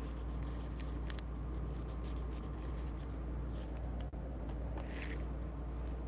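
Steady low background hum with a few faint clicks and soft rustles, and one brief higher scuffing noise about five seconds in.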